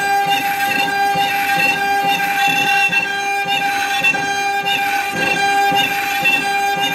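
CNC router spindle whining at a steady high pitch while its end mill carves a wood panel, the cutting noise wavering as the bit travels through the wood.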